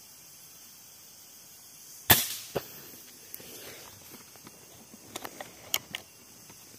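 A direct-release-valve PCP air rifle fires once, a sharp crack, with a smaller knock about half a second later. A few light clicks follow near the end.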